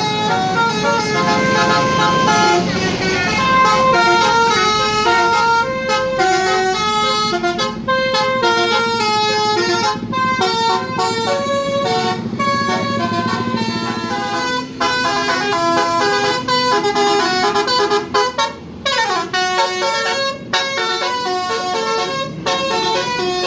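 Tour bus's Basuri telolet horn playing a melody, a long run of loud, clear horn notes stepping up and down in pitch. About nineteen seconds in, one note slides steeply downward.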